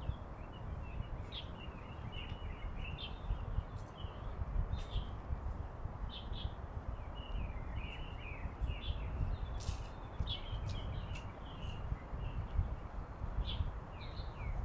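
Small birds chirping and twittering over and over, in many short, quick calls, over a steady low rumble.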